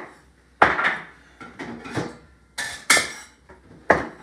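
Chef's knife chopping cooked shrimp on a wooden cutting board: sharp knocks of the blade on the board, irregular and roughly once a second. One brighter clatter comes about two and a half seconds in.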